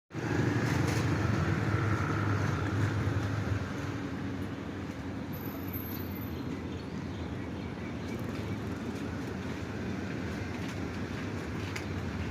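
Diesel-electric locomotive engine running with a low drone, louder for the first few seconds and then settling to a steadier, quieter level.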